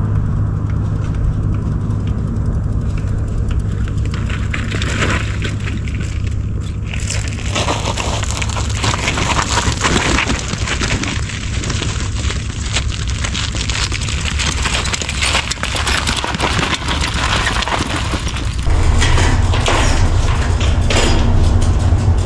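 Wind buffeting the microphone: a loud low rumble with a rushing noise that turns gustier and crackly about seven seconds in.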